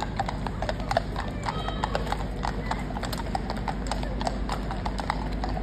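Hooves of two horses clip-clopping on a paved road at a walk, an uneven run of sharp clops, several a second.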